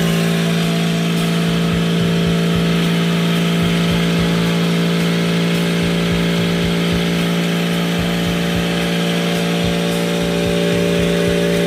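Small 12-volt DC motor of a cotton candy machine running on battery power, spinning its vertical shaft with a loud, steady hum at one unchanging pitch during a rotation test. It cuts off abruptly at the very end.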